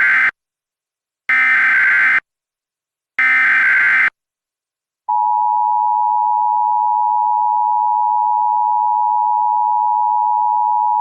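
Emergency Alert System SAME header: the tail of one buzzy digital data burst and two more, each about a second long, then about five seconds in the steady two-tone EAS attention signal (853 and 960 Hz) starts and holds.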